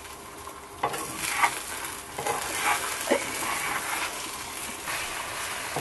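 Egg whites and sliced mountain yam sizzling in a frying pan, with a metal spoon stirring and scraping through them in several short strokes.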